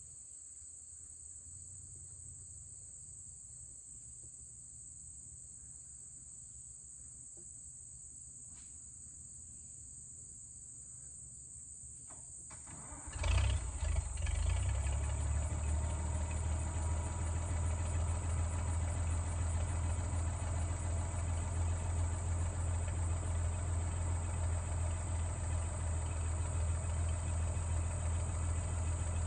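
Insects chirping steadily, then about 13 seconds in the International 460 Utility tractor's engine cranks briefly, catches and settles into a steady idle.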